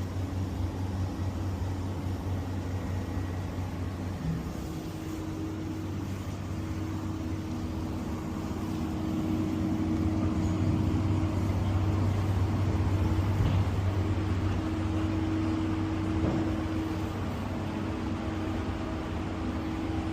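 A steady low mechanical hum with a faint droning tone over a noisy background, growing louder for a few seconds in the middle.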